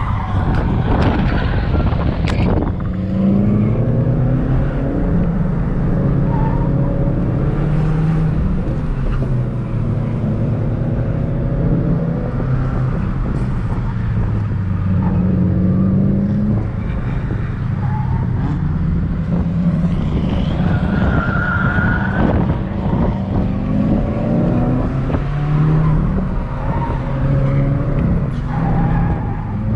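Subaru WRX's turbocharged flat-four engine heard from inside the cabin, driven hard, its revs rising and falling again and again through gear changes. A short high squeal comes about two-thirds of the way in.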